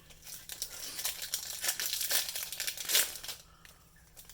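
Foil booster-pack wrapper crinkling and crackling in the hands, a dense run of crackles that is loudest about three seconds in and dies down near the end.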